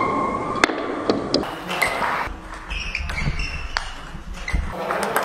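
Table tennis ball clicking off paddles and the table in a quick rally: a series of sharp, irregularly spaced pings.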